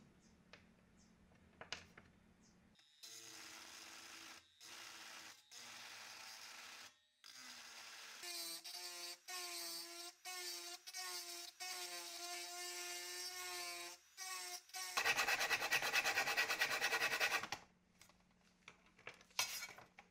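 Handheld rotary tool with a small grinding bit cutting a notch into the edge of a thin metal base plate, run in a series of short bursts and then one longer, louder pass of about two and a half seconds. Light handling clicks near the start and the end.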